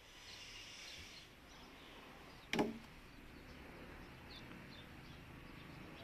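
A single sharp wooden knock about two and a half seconds in, as a log strikes another log while being shifted in a pile. It sounds over a faint steady outdoor background hiss.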